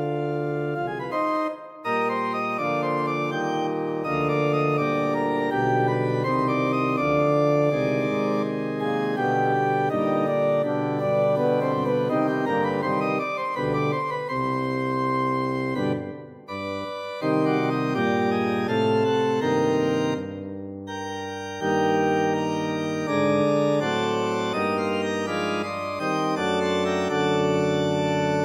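Organ playing a slow piece in full sustained chords over a held low bass, with a few short breaks between phrases.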